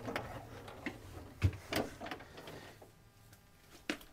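Scattered knocks and clicks of someone climbing down a ladder into a boat's engine room, over a faint low hum that stops about halfway through.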